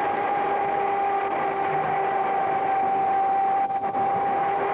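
H class tram running along the track: a steady rumble with a steady whine that sags slightly in pitch. The sound briefly drops out a few times near the end.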